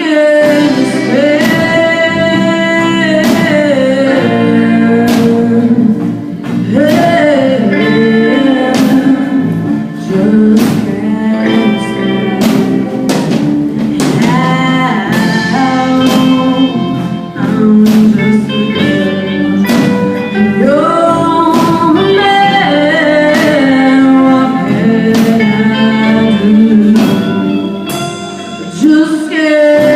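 A live band plays a song: a lead vocal sings over guitar, with regular drum hits keeping the beat.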